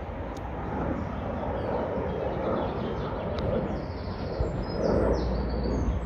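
Outdoor ambience: a steady rumbling noise with a few short, high bird chirps over it about four to five seconds in.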